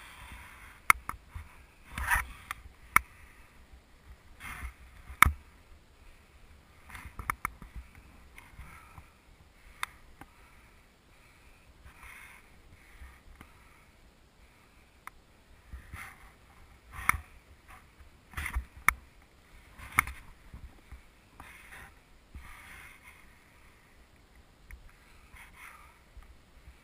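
Snowboard sliding and carving over snow: a rough scraping hiss that swells and fades with each turn, broken by sharp knocks, the loudest about five seconds in and several between about seventeen and twenty seconds in.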